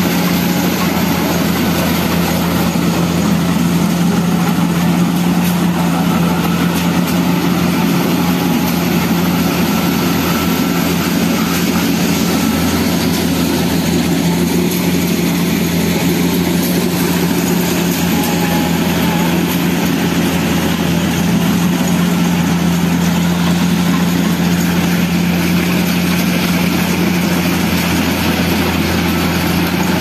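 Kubota DC-70 combine harvester's diesel engine running steadily as the machine cuts and threshes rice, a loud, even drone with a deep hum that does not let up.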